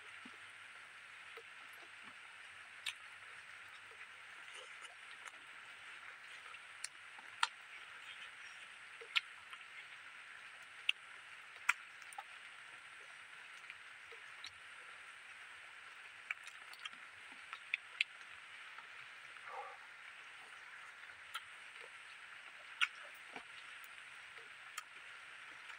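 Close-up eating sounds of someone eating rice and curry by hand: scattered sharp mouth clicks and smacks every second or two, over a steady high hiss from the outdoor surroundings.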